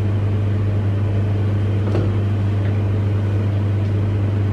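A steady low electric hum from a running motor or fan, unchanging throughout.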